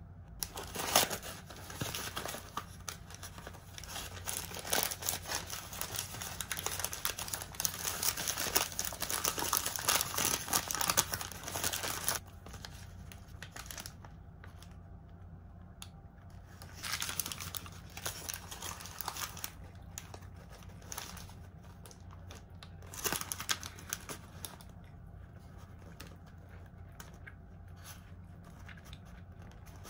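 Paper wrapper of a hamburger crinkling and rustling as it is unwrapped and handled, dense and continuous for the first twelve seconds or so, then a few shorter rustles.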